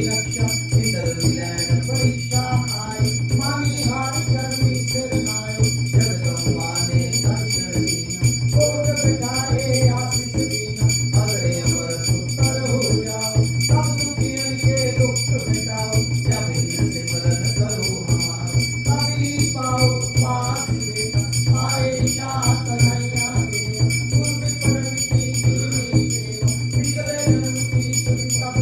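Hindu aarti devotional music: voices singing over continuously ringing bells and a steady beat.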